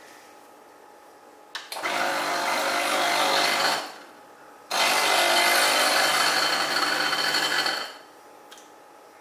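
WPM Welhome Pro KD-270S espresso machine's pump pushing water through the group head in two flushes, the first about two seconds long and the second about three, each a steady rush of water over a low pump hum.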